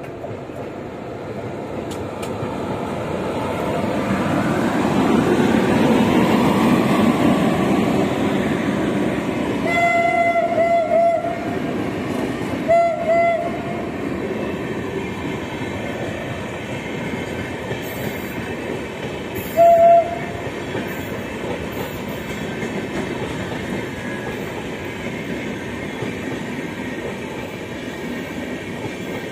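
Indian Railways express train running through a station at speed without stopping: a rising rumble as the electric locomotive goes by, then the steady rush and clatter of the coaches rolling past. The locomotive's horn sounds three times: a longer blast, a short one soon after, and another short one later.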